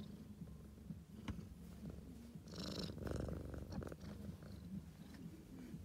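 A cat purring steadily and close by, with a brief louder rustling noise about two and a half seconds in.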